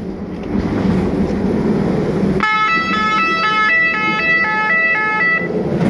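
Automatic track-worker warning system sounding a train warning, meaning a train is approaching and the track must be cleared. An alternating multi-tone horn starts about two and a half seconds in and stops about three seconds later, switching pitch several times a second over a steady machine rumble.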